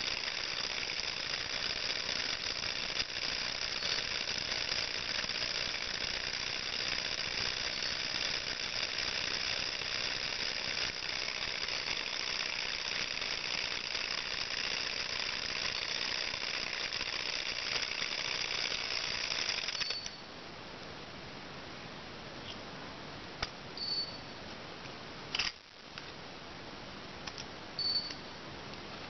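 Model Stirling hot-air engine running fast, its flywheel belt-driving a small DC motor as a generator: a steady, rapid mechanical clatter. It cuts off abruptly about two-thirds through, leaving a quieter background with a few light clicks as the engine is handled.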